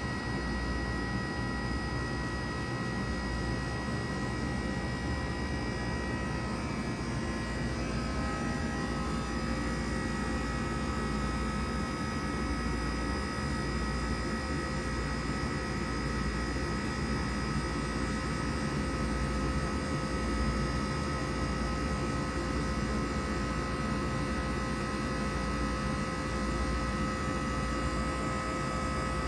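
2000 Bard 3-ton wall-hung heat pump running through a defrost cycle: a steady compressor hum with whining tones. About seven seconds in, one high tone fades and a lower one takes over.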